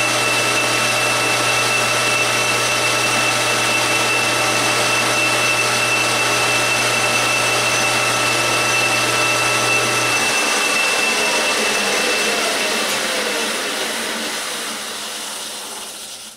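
Metal lathe spindle running at about 2,100 rpm, with a loud steady squeal from its leather link drive belts slipping at high speed. About ten seconds in, the motor is switched off and the spindle winds down, its pitch falling as it fades out near the end.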